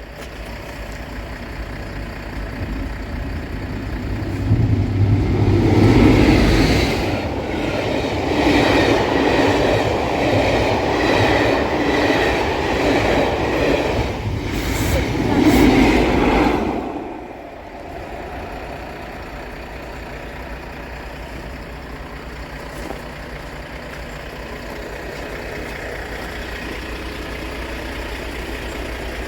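Train passing over a level crossing. It builds from about four seconds in, clatters past for about twelve seconds with wheel noise over the rail joints, and drops away suddenly, leaving a steady low rumble.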